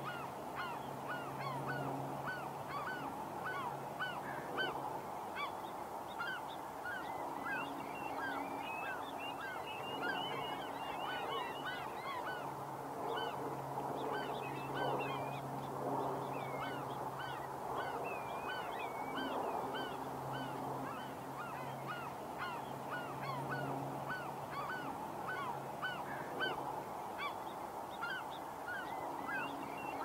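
A large flock of migratory birds calling all at once: a dense, unbroken chorus of short, overlapping rising-and-falling calls. A steady low hum comes and goes underneath.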